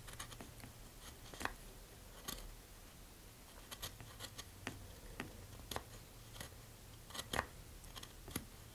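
Hobby knife cutting and trimming a paper tube against a plywood sled: a dozen or so faint, sharp clicks and snips at irregular intervals.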